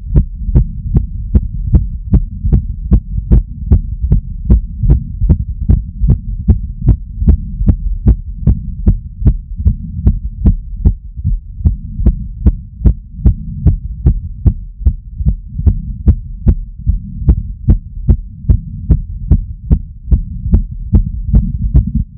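A person's heartbeat, fast after cardio, picked up through a digital stethoscope strapped to the chest. The beats come quick and regular over a steady low rumble.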